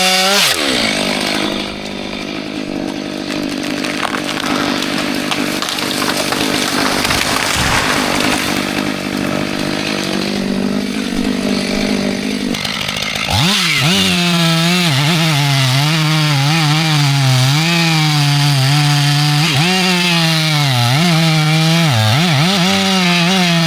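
Chainsaw running. About half a second in, its pitch drops as it loads up cutting through wood, and it saws steadily for about thirteen seconds. It then climbs back to a high, wavering rev, with several quick throttle dips near the end.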